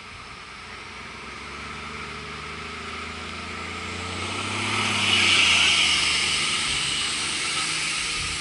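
Road traffic passing: a motor vehicle's engine hum and tyre noise swell to a peak about five seconds in, then fade as it goes by.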